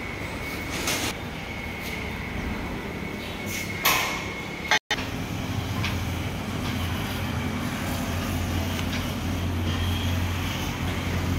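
Steady mechanical running noise in a workshop, with a high whine and two short hissing bursts. It breaks off suddenly and gives way to a steady low hum of engines and road traffic.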